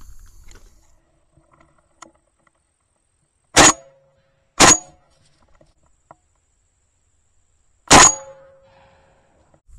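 Three shotgun shots at doves in flight: two about a second apart, then a third about three seconds later, each with a short ringing echo. The last shot hits a dove.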